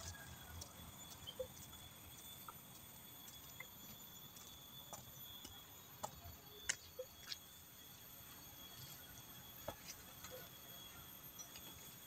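Faint steady high-pitched insect drone, with scattered small clicks and taps.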